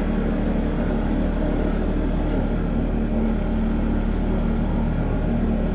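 Boat motor running steadily at an even speed.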